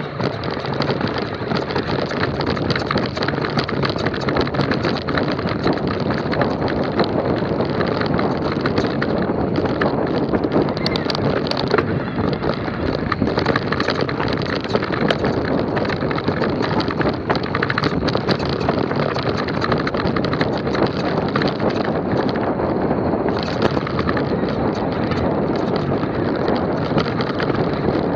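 Mountain e-bike riding fast down a rocky, loose-stone trail: knobby tyres crunching over gravel while the bike rattles and knocks over the stones, a dense run of small impacts, with wind rushing over the camera microphone.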